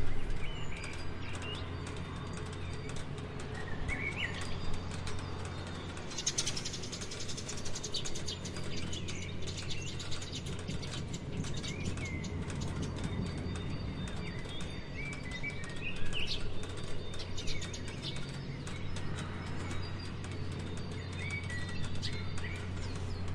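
Rain pattering in dense, irregular drops, with small birds chirping now and then over it. A low steady hum runs underneath.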